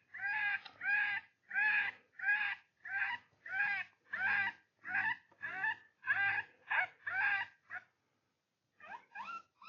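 Predator call playing a squalling animal distress cry, repeated nearly twice a second, each cry arching up and down in pitch. It breaks off about eight seconds in, then a changed cry starts again.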